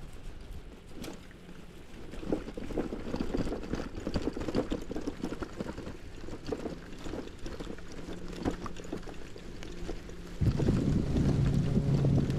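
Wind buffeting the microphone while riding a bicycle, a rough, crackly rush that turns much louder and denser about ten seconds in.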